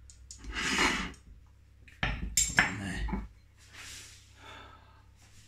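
Knife and fork scraping and clinking against a ceramic plate, then a few sharp knocks as the plate is moved across the worktop.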